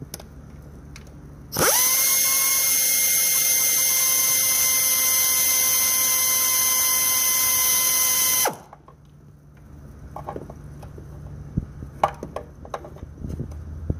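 Power drill spinning out an intake manifold bolt: it spins up quickly, runs at a steady whine for about seven seconds, then stops suddenly. Light clicks and knocks of tools and metal parts being handled follow.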